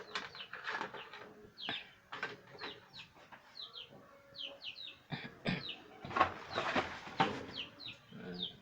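Birds chirping over and over in short, falling notes, over clatter and rustling of things being handled, which is densest in the second half.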